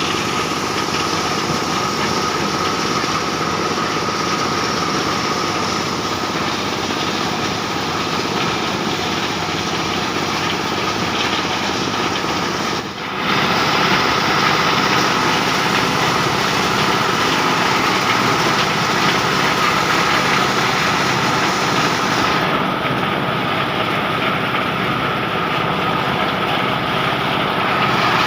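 Motorised corn sheller running steadily, its small engine and threshing drum giving a continuous drone with a steady whine, dipping briefly about halfway through.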